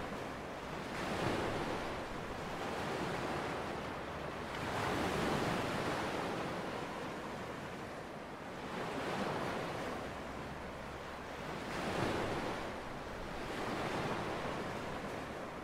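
Small waves washing onto a sandy shore, the surf swelling and falling every few seconds.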